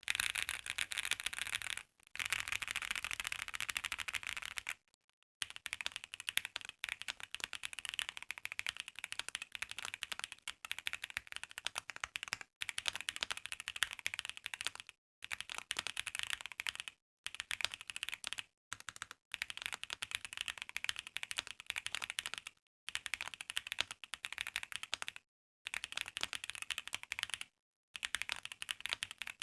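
Mechanical keyboard fitted with original Holy Panda tactile switches being typed on in quick, dense runs of keystrokes, broken by about ten short pauses.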